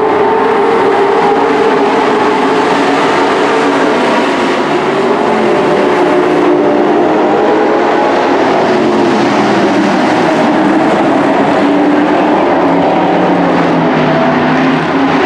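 Several dirt-track race trucks running laps together at racing speed: a loud, continuous engine drone whose pitch wavers as the trucks accelerate and pass.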